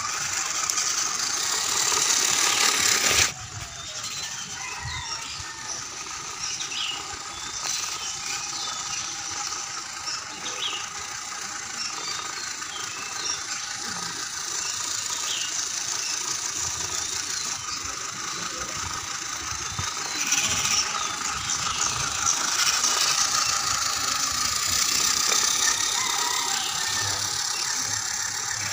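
Small electric motor and gearbox of a homemade RC truck whining steadily as it drives, with a light rattle. The sound drops suddenly about three seconds in and grows louder again in the last third.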